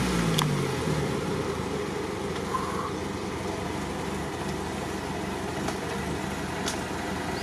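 Lada Niva's engine, stuck in mud: the revs fall away in the first second, then it runs steadily at low revs.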